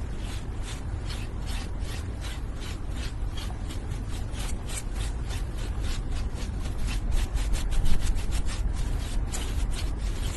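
Repeated rasping, scraping strokes, about three to four a second and growing faster after about seven seconds, over a steady low rumble.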